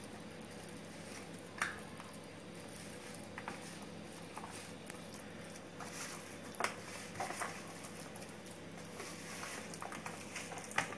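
Hands squishing and rubbing masala-coated sardines in a plastic tub: soft, wet squelching with scattered light clicks as fingers knock the plastic, over a faint steady hum.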